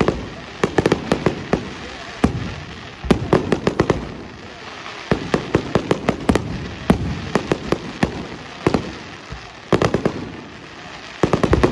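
Fireworks display: sharp aerial shell bangs and crackling reports going off in rapid clusters every second or two, over a low rumble between them.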